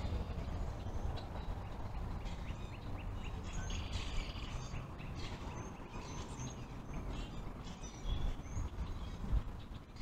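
Many short bird chirps and whistles over a steady low rumble of distant road traffic, with a low bump near the end.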